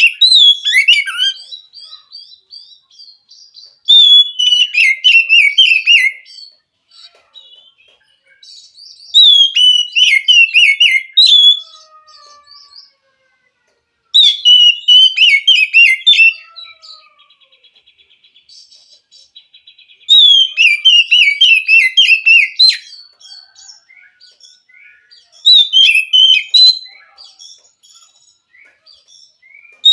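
Oriental magpie-robin singing: about six bursts of varied, quickly changing song phrases, each roughly two seconds long, with pauses of a few seconds between them.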